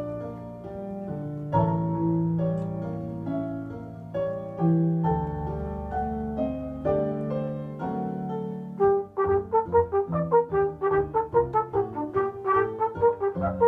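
Flugelhorn playing a melody with piano accompaniment. Sustained chords at first, then from about nine seconds a quick run of short, detached notes, about four a second.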